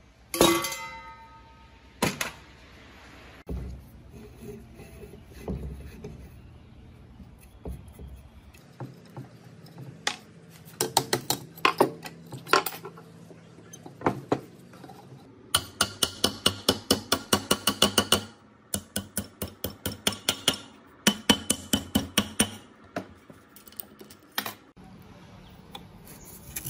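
Metal parts being worked by hand: a single ringing metal strike, then runs of quick, sharp metallic taps or clicks, about five a second, with short pauses between runs.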